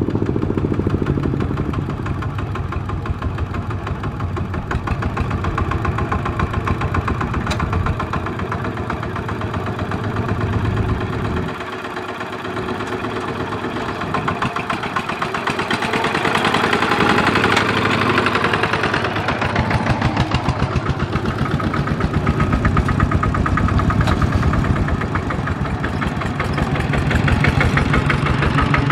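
Single-cylinder diesel engines of two-wheel walking tractors running with a rapid, even beat. One tractor, pulling a trailer loaded with rice sacks, grows louder from about halfway through as it drives close by.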